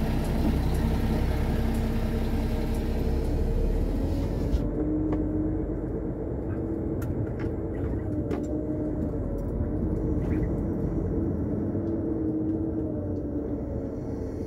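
Heavy truck's diesel engine running as heard from inside the cab as the truck moves off slowly: a steady low rumble with an engine note that wavers slightly in pitch. A few light clicks come through it.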